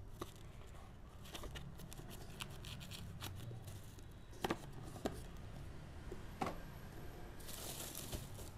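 Bubble wrap and plastic packaging rustling and crinkling as things are handled in a cardboard box, with a few light knocks. The crinkling gets louder near the end as a bubble-wrapped item is pulled out.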